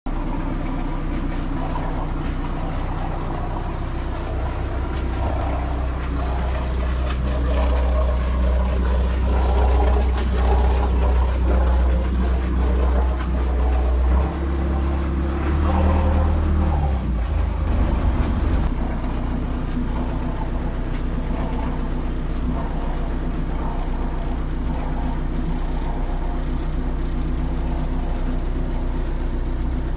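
Scania diesel engine of a fishing cutter running steadily with an even, low drone. It grows louder for a stretch in the middle, then settles back to a steady level about two-thirds of the way through.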